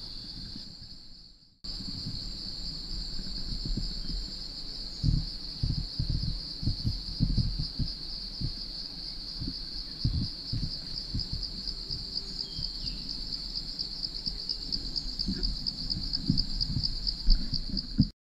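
Steady high-pitched chorus of forest insects, pulsing faintly in its second half, with irregular low thuds of footsteps on the forest floor.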